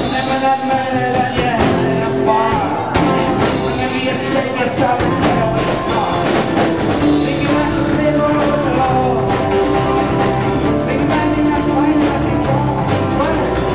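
A live rock band playing a song, with a singer over drums and guitar.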